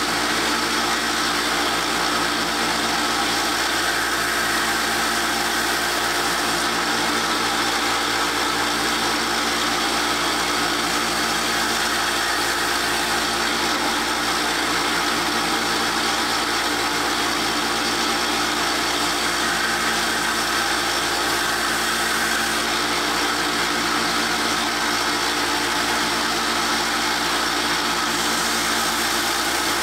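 Harbor Freight 1x30 belt sander running steadily while the steel broadhead on an arrow is held against the moving belt, grinding the edge until a burr forms.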